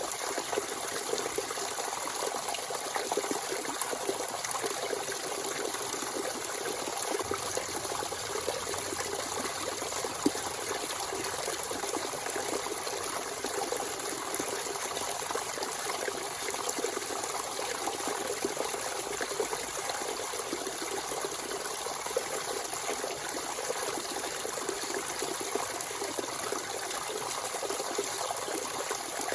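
Natural spring water running and trickling steadily, a continuous splashing flow.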